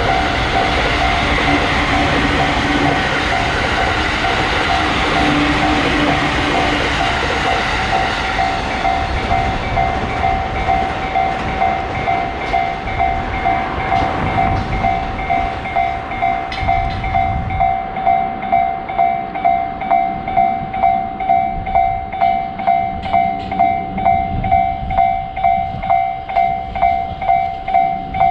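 Japanese level-crossing warning bell ringing in a steady beat of about two strokes a second while a train passes over the crossing. The train's rumble and clatter fade a little over halfway through, leaving the bell ringing on its own.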